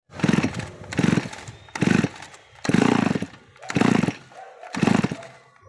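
Two-stroke brush cutter engine sounding in six short bursts, each about half a second long, spaced roughly a second apart.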